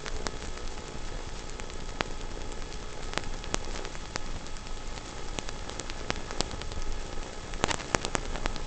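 Radio-controlled car on loose gravel: a steady crackly hiss with many scattered sharp ticks of stones, a tight cluster of them near the end.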